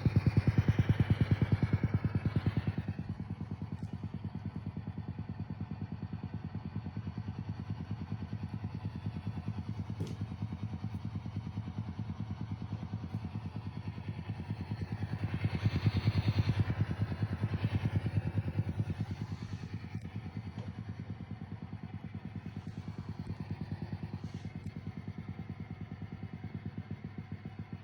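Fender '65 Deluxe Reverb Reissue amplifier's Vibrato channel making a fast, steady ticking noise through its speaker. The ticking is louder over the first couple of seconds and again around the middle.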